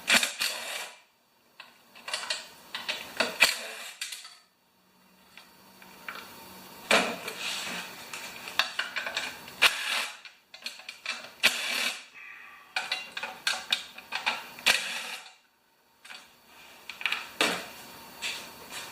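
Metal hand tools clinking and rattling in irregular bursts, being rummaged through and picked up, with short pauses between.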